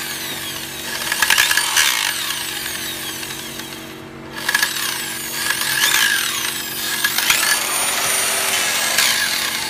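Makita table-top circular saw running, its motor pitch rising and falling, with rough scraping bursts a few times. It is the saw's abnormal noise, which the owner takes for something hitting or rubbing inside.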